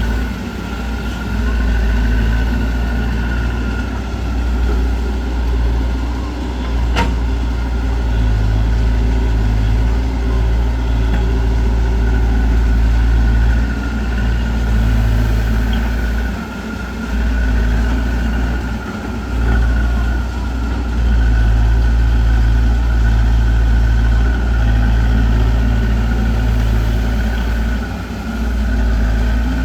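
Heavy vehicle's diesel engine running steadily, its low drone dipping briefly a few times, with one sharp click about seven seconds in.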